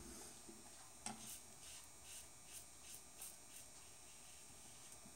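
Faint rasp of a Lord Tech safety razor with a PermaSharp blade scraping through a day's stubble in short strokes, about two or three a second, starting about a second in.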